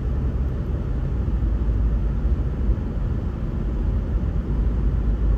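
Steady low rumble of a car driving along a road: engine and road noise heard from inside the moving vehicle.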